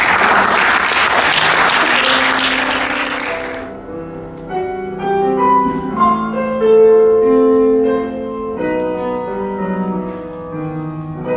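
An audience applauding for the first few seconds, then piano music playing single sustained notes that change one after another.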